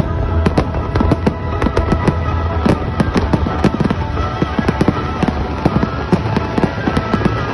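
Aerial fireworks display: shells bursting in a dense run of sharp bangs and crackles, several a second, with music playing underneath.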